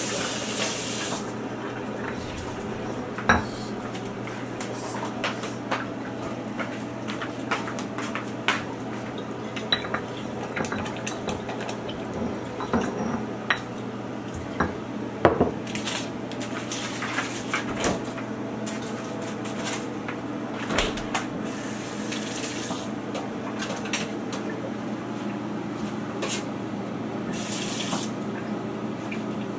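Kitchen counter and sink work: irregular clinks and knocks of dishes and utensils against a granite mortar, with a few short spells of running tap water, over a steady low hum.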